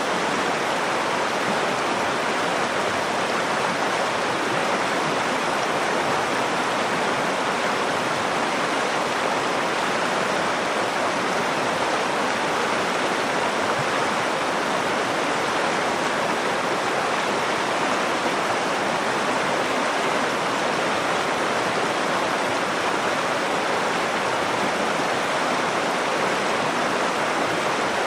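Nakdong River water flowing: a steady, unbroken sound of running water.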